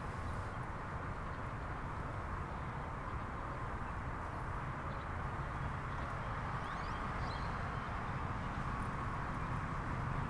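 1987 Honda CBR600F Hurricane's inline-four engine idling steadily.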